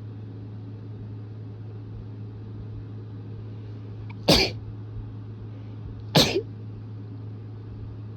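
Two sharp sneezes about two seconds apart, the first about four seconds in, set off by dust.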